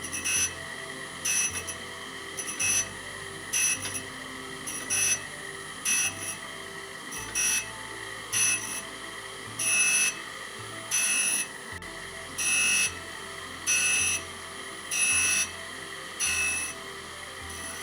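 Surface grinder wheel grinding a metal part, a short ringing hiss each time the reciprocating table carries the work under the wheel, roughly once every second or so, over the steady whine of the spindle.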